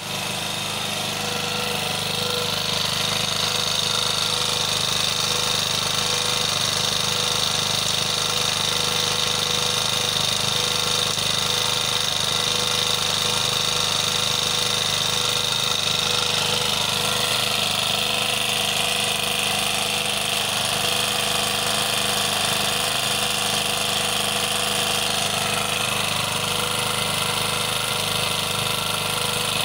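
Small petrol generator engine running steadily, with an unchanging pitch and level.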